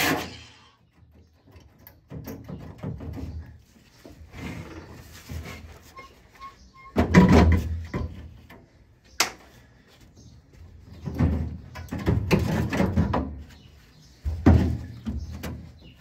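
Sheet metal of a Jeep FC 170's doghouse being handled and shifted by hand: a series of clunks and rattles every couple of seconds, with one sharp click about nine seconds in.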